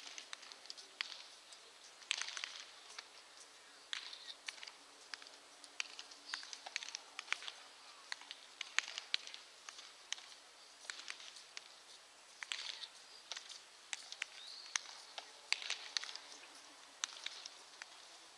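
Baseballs smacking into leather gloves as many pairs of pitchers play catch: sharp pops at an uneven pace, several a second at times, overlapping one another.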